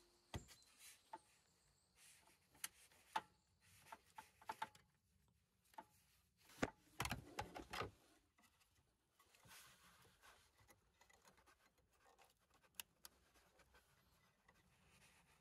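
Faint scattered clicks, knocks and rubbing from hands working with tools and parts, mostly quiet between, with a short run of louder knocks about seven seconds in.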